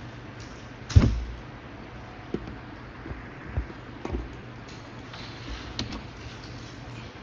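A sharp thump about a second in, followed by several fainter knocks and clicks, over a steady low hum.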